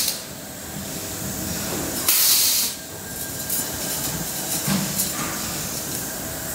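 Compressed air hissing out once, for under a second about two seconds in, from the pneumatic cylinders of a copper-aluminium tube resistance welding machine, over a steady workshop machine hum with a few light clicks.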